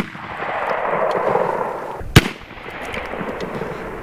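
An air rifle firing once, a sharp, loud report about two seconds in, over a steady hiss.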